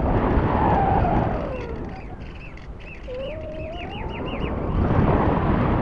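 Wind rushing over the onboard camera of a Saffron electric model glider in flight, swelling and easing, with a tone that slides down in pitch and later rises again. A run of short high chirps, about four a second, sounds in the middle.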